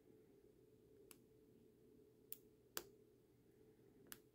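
Four faint, separate clicks from a hook pick working the pins of a six-pin Martindale lockout padlock under tension, the third the loudest, over a faint low hum.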